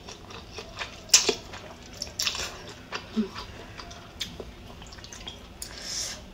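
Close-up eating sounds: pho rice noodles being slurped and chewed, a string of short wet slurps and mouth clicks, the sharpest about a second in.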